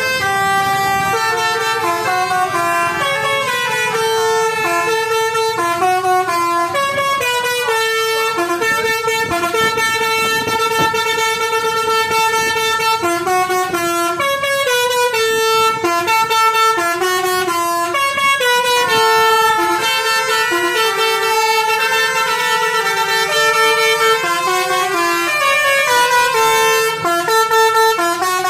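Telolet horns of Basuri buses, multi-tone musical air horns, sounding together and playing melodies. Several notes are held at once and shift in steps, without a break.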